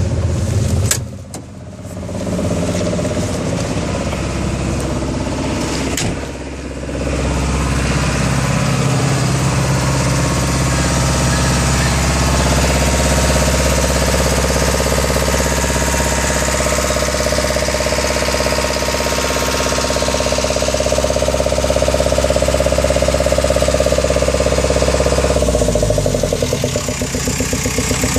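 JCB JS130 LC excavator's diesel engine running steadily at raised revs, then dropping back to a pulsing idle about 25 seconds in.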